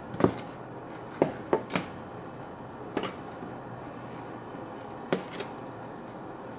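A santoku-style kitchen knife chopping down onto a cutting board: several sharp knocks in small irregular clusters, a second or two apart.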